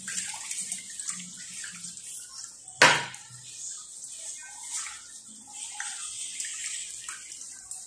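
A hand swishing and stirring a wet mixture of water, sugar, eggs and oil in a large bowl to dissolve the sugar. There is one sharp knock about three seconds in.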